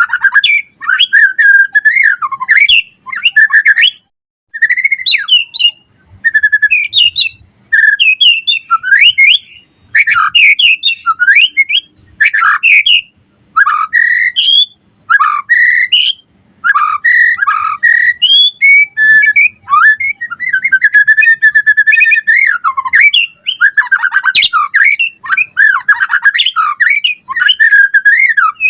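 White-rumped shama (murai batu) singing continuously: fast, varied whistled phrases and rapid chattering notes with brief pauses between bursts.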